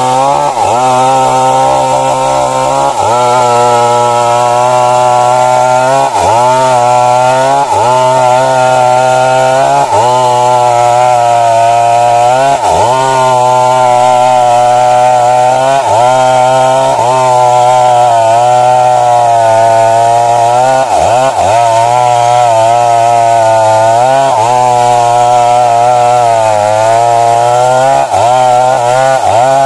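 Stihl MS 382 two-stroke chainsaw cutting wood at high revs. Its engine note dips briefly under load every few seconds and then recovers.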